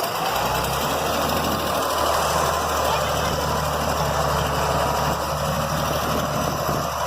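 Heavy road-works machinery engine running steadily while the old road surface is being removed.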